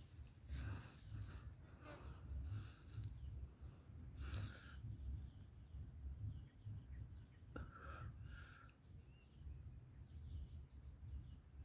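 Quiet forest ambience: a steady high-pitched insect drone, with low rumbling and handling bumps and a few faint brief sounds about four and eight seconds in.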